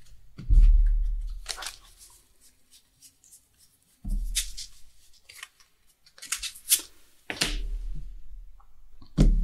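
Trading cards being handled, slid and laid down on a playmat: several short rustling swishes, some with a dull bump on the table.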